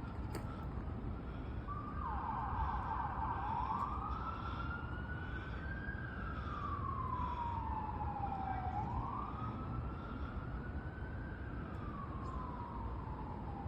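Emergency vehicle siren in the distance. It rises and falls in slow wails, with a short stretch of fast yelping about two seconds in, over a steady low background rumble.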